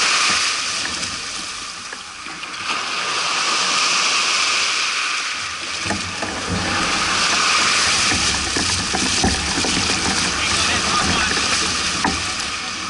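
Lake water splashing and washing against the hulls of a Hobie 16 catamaran as it is walked out through the shallows into the waves, with wind rushing over the microphone. The wash grows heavier and more rumbling from about halfway through.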